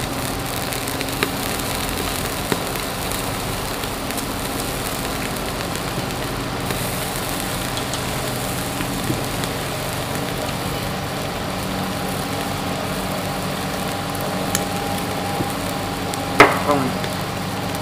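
Meat sizzling steadily on a sin dat tabletop grill pan, over a steady low hum, with a few small clicks and one sharp clink near the end.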